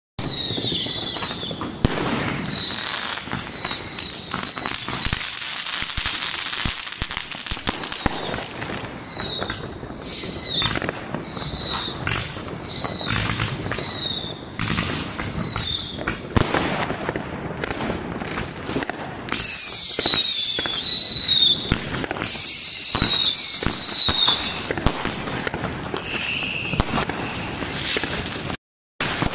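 New Year's Eve fireworks: continuous crackling and sharp pops with a string of short whistles that fall in pitch. About two-thirds of the way through, louder whistles of several tones at once sound repeatedly for a few seconds. The sound breaks off briefly near the end.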